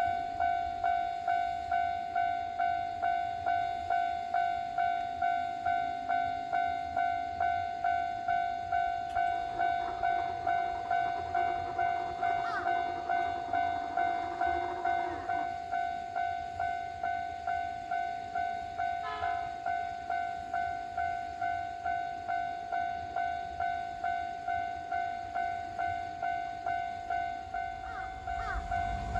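Japanese railway level-crossing alarm ringing, an electronic bell tone repeating about twice a second to warn of an approaching train. A train's low rumble rises near the end.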